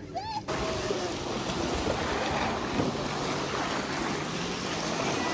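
Steady rushing noise of wind and water, with wind buffeting the microphone, starting abruptly about half a second in.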